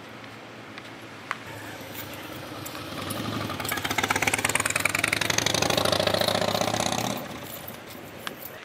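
A motor vehicle's engine passing by on the street, building up over a second or so, loud for about three seconds with its pitch sinking, then falling away quickly.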